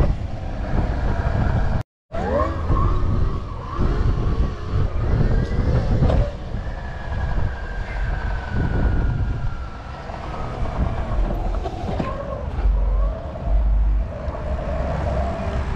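Electric dirt bikes riding, their motor whine gliding up and down in pitch as they speed up and slow down, with one long falling whine in the middle. Heavy wind rumble on the microphone runs underneath, and the sound cuts out completely for a moment about two seconds in.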